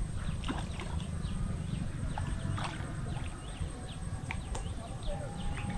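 Birds chirping with many short, quick calls over a steady low rumble, with a faint steady high whine throughout.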